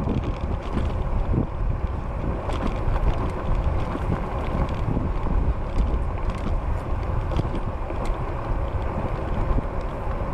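Steady wind rushing over the microphone of a fat-tire e-bike coasting on pavement on Vee Tire ZigZag street tires, with a low rumble and the motor barely in use.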